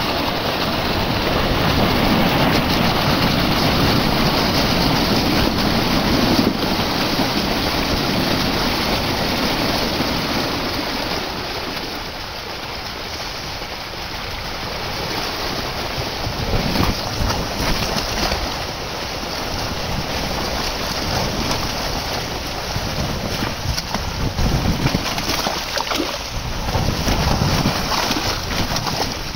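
Water gushing out of a fish-stocking chute into the water, a steady rushing splash. In the last few seconds large trout tumble out with it, thrashing and splashing at the surface.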